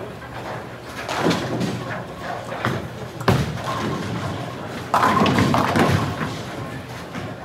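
Bowling alley sounds: a bowling ball thuds onto the lane about three seconds in, then pins crash loudly about five seconds in, over a steady clatter of balls and chatter in the hall.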